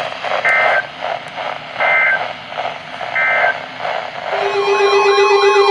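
Weather radio Emergency Alert System end-of-message data bursts: three short, identical electronic screeches about 1.3 seconds apart over radio static, marking the end of a warning broadcast. About four seconds in, music starts with a steady low tone and warbling, siren-like tones.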